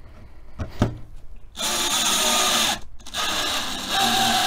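Brushless cordless drill driving a Torx screw into wood, running in two bursts with a brief stop between them; the tone of the second burst shifts as the screw draws the two boards tight. A couple of light knocks come before the drill starts.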